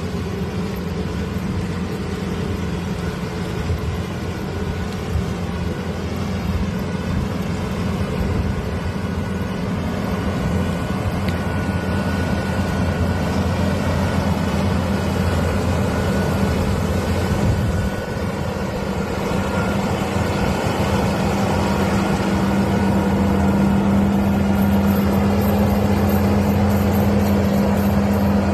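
Rice combine harvester running, a steady engine drone that grows gradually louder.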